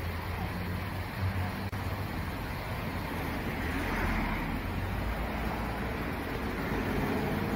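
Road traffic noise: a steady low engine hum, with a vehicle passing whose tyre and engine noise swells from about three seconds in.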